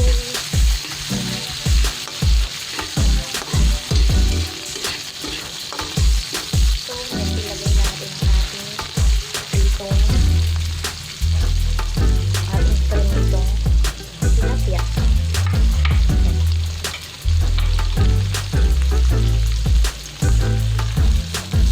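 Onion and other aromatics sizzling in hot oil as they are sautéed in a pan, stirred with a spatula that clicks and scrapes against the pan many times. A low, beating background track runs underneath, fuller from about halfway.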